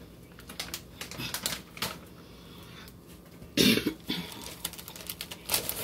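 Crinkling of a plastic shredded-cheese bag as cheese is shaken out of it: a run of sharp crackles over the first couple of seconds, with one louder burst about three and a half seconds in.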